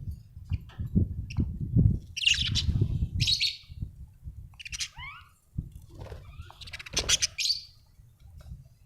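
Budgerigars chirping in short bursts of high, rapid chirps, with a few quick falling whistles about halfway through. Low, uneven bumping and rumbling runs underneath.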